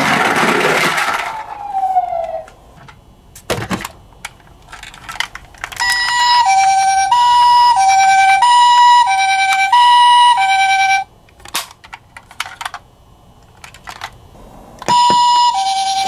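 Toy ambulance's electronic wail siren gliding down and dying away in the first two seconds, followed by scattered clicks and taps of handling. A second toy, a Japanese Himedic ambulance, then sounds its two-tone hi-lo siren for about five seconds, and starts it again near the end.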